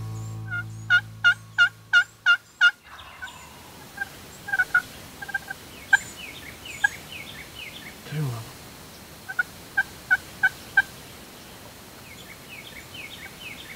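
Turkey yelping: a run of about seven evenly spaced yelps in the first few seconds, then further short yelp series and scattered single notes, with small birds chirping higher up. Soft background music fades out during the first yelps.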